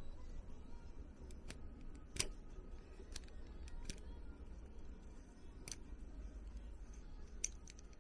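Scattered light clicks and taps of a small plastic mechanism being handled and worked by hand, about six in all, the sharpest a couple of seconds in and near the end, over a low steady hum.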